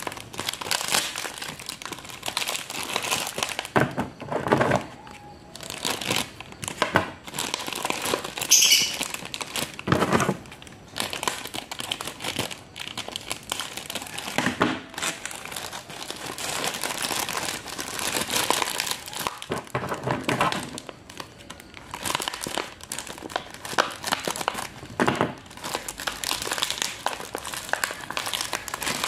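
Thin clear plastic bags crinkling and rustling as hands unwrap potted plants, in irregular bursts that start and stop.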